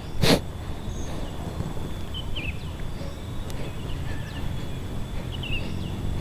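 Open-air ambience: a steady low rumble of wind on the microphone with a few faint bird chirps scattered through it, after a short whoosh of noise near the start.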